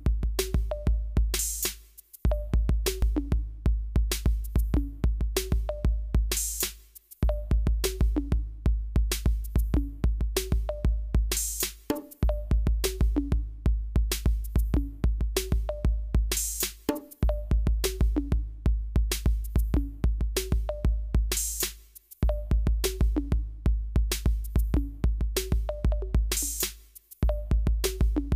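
Electronic music with a drum-machine beat and deep bass, which drops out briefly about every five seconds.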